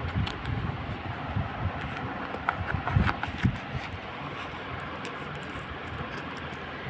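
A plastic-wrapped parcel being handled and opened: short crinkles and knocks of the plastic wrapping, bunched in the first half, over a steady background hum.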